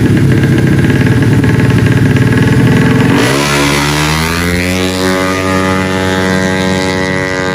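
Loud rumble of tuned 155cc automatic racing scooter engines. About three seconds in, one engine note climbs steeply as the scooter launches, then holds high and steady at full revs.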